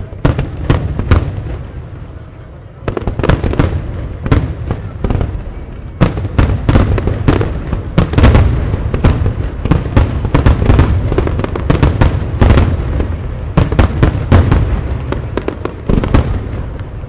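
Aerial fireworks shells bursting in rapid, dense runs of sharp bangs over a continuous low rumble, with a brief lull about two seconds in.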